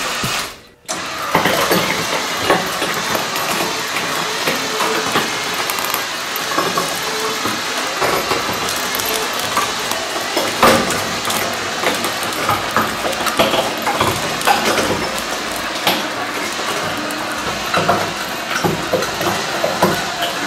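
Electric winch straining under load as it drags a 13,000 lb Haas VF-3 milling machine on timber skids over steel pipe rollers. A steady motor drone runs under many sharp cracks and creaks from the loaded rollers and skids, after a brief break near the start.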